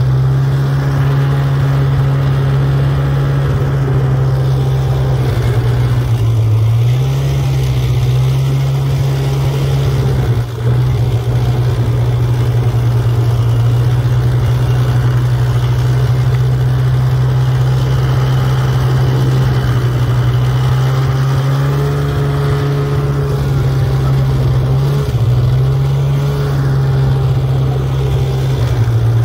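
Snowmobile engine running steadily at low speed while towing snow tubes, heard from on board the sled. Its pitch dips briefly twice, about six seconds in and again near twenty-five seconds.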